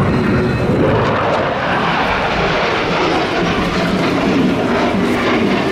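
A Dassault Mirage 2000-5 fighter flying past, its single SNECMA M53-P2 turbofan giving loud, steady jet noise.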